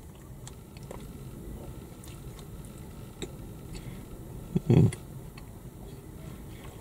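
Soft chewing and wet mouth clicks from a man eating a spongy doughnut ring, with one brief, louder, low mouth sound about two-thirds of the way through.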